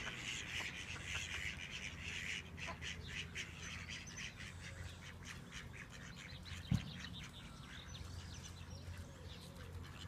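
Ducks quacking, with bird calls among them, densest in the first couple of seconds, over a low steady rumble. A single sharp thump comes about two-thirds of the way through.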